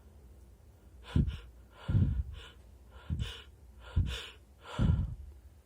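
A person taking a series of five short, sharp gasping breaths, roughly one a second.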